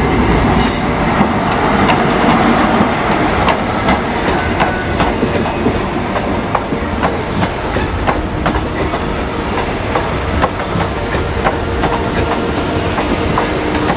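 GWR High Speed Train (InterCity 125), led by Class 43 power car 43093, passing close with its coaches: a loud steady rumble with many irregular clicks of wheels over the rails.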